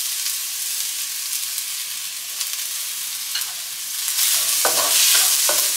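Chopped red onion and garlic sizzling in hot olive oil in a wok, stirred with a wooden spatula. The sizzle grows louder about four seconds in.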